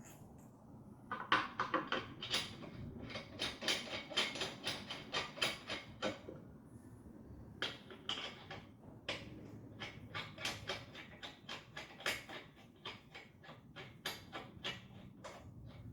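Irregular clicking and clattering, a few sharp clicks a second with short pauses, like tools and metal parts being handled during hands-on work.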